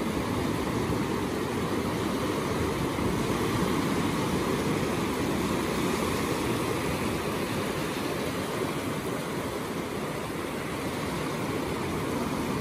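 Ocean surf: waves breaking and washing over the shallows in a steady rush, swelling slightly a few seconds in.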